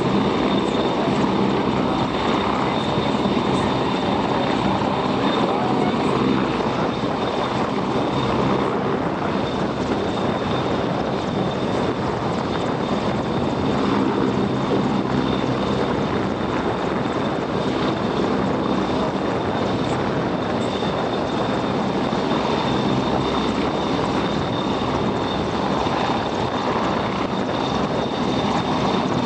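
Royal Navy AW101 Merlin helicopter hovering: the steady sound of its three turboshaft engines and main rotor, with a constant high whine running over it.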